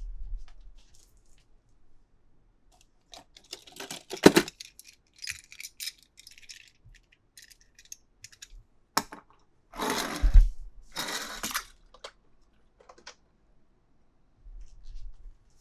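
Toy packaging and small toy cars being handled in an unboxing: scattered plastic clicks and rattles, a sharp knock about four seconds in, and two rustling bursts a little after halfway.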